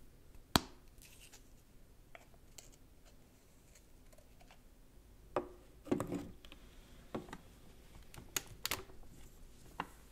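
Metal clicks and taps of a DeLonghi espresso machine's portafilter being handled and fitted into the group head. One sharp click comes about half a second in, then a run of small clunks and taps in the second half.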